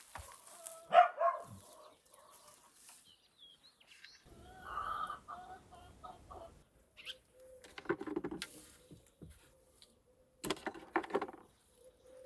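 Domestic hens clucking in a pen. Later come rustling and short knocks as eggs are lifted out of a straw nest.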